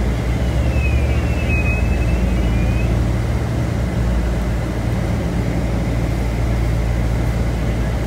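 Steady low rumble of a bus's engine and road noise heard from inside the cabin, with a faint high squeal that dips and then rises briefly about a second in.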